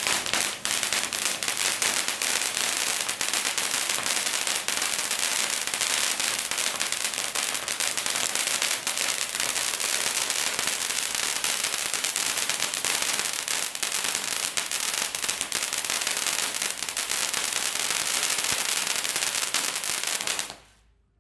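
Pink 'Flint Stones' fountain firework burning: a steady, loud hiss of the spark jet, peppered with many small crackles. It dies away quickly about twenty seconds in as the fountain burns out.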